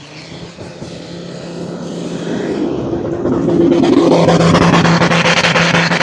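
A 4x4's engine working hard at steady revs. It grows louder over the first four seconds and then stays loud, with a fast clatter over it in the loud part.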